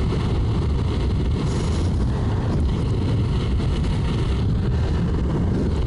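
Steady rush of wind buffeting the microphone, mixed with tyre noise from a Begode Blitz electric unicycle riding fast on asphalt.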